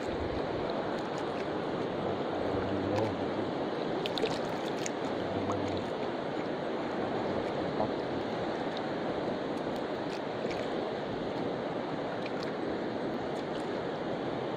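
Steady wash of seawater lapping against the hull of a small outrigger canoe, with a few light clicks scattered through.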